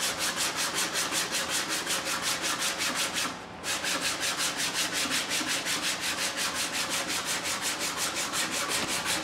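Sandpaper on a small block rubbed quickly back and forth by hand along the figured maple side of an octave mandolin body, about five strokes a second with a brief pause about three seconds in. The sanding is working out the scratch lines left by the coarser grit.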